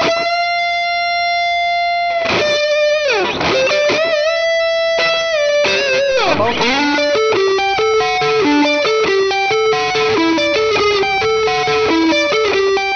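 Electric guitar lead played through a Valeton GP200R multi-effects pedal on a sweet, round lead tone with some drive. A long held note, then slides and a note with vibrato, then from about seven seconds in a run of quick melodic notes.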